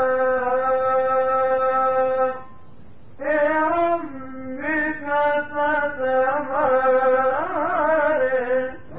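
A male Quran reciter chanting in the melodic mujawwad style: he holds one long steady note for about two and a half seconds, pauses briefly, then sings ornamented phrases that waver up and down in pitch.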